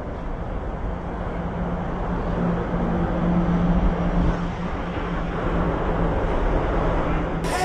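A vehicle engine running with a steady low hum under outdoor noise, growing a little louder over the first few seconds.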